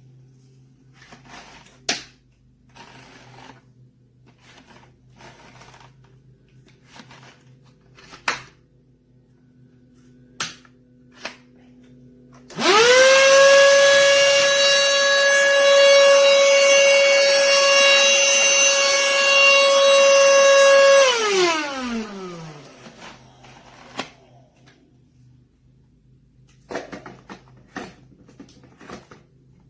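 Black+Decker cordless handheld vacuum switched on: its motor spins up quickly to a steady high whine, runs for about eight seconds, then winds down with falling pitch after being switched off. Light clicks and knocks of the vacuum being handled come before and after.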